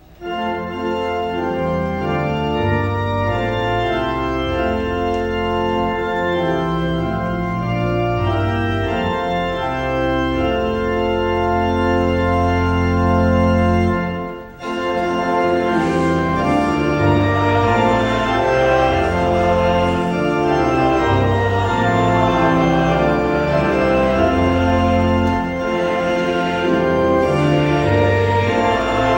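Church organ playing sustained chords over a moving bass line. There is a brief break about halfway through, then the playing resumes.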